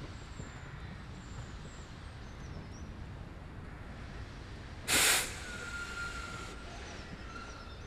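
Small narrow-gauge steam locomotive blowing off steam from its cylinder drain cocks: a sudden loud blast of hiss about five seconds in that dies away over a second or so. Birds chirp faintly throughout.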